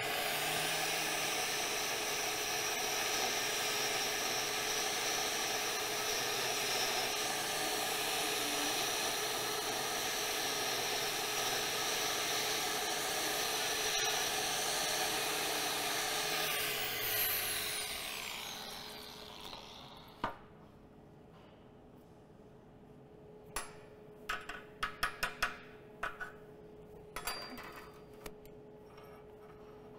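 Angle grinder with a wire wheel running steadily against welded steel, brushing the finished welds clean. About 17 seconds in it is switched off and winds down in falling pitch. Near the end there are several sharp metallic clicks and taps.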